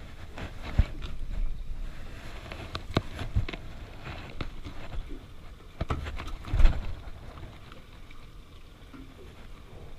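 Irregular knocks and thumps against an aluminium boat, with rustling handling noise; the heaviest thump comes about two-thirds of the way through.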